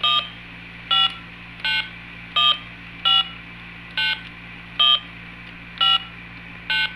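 Electronic toy beeping as its buttons are pressed one after another: nine short tones of varying pitch, less than a second apart, like phone keypad tones.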